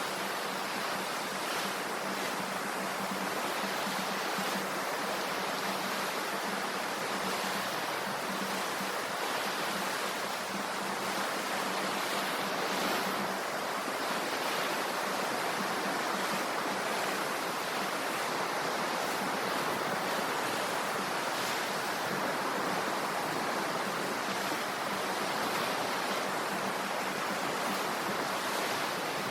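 Sea waves washing ashore: a steady, even rush of surf.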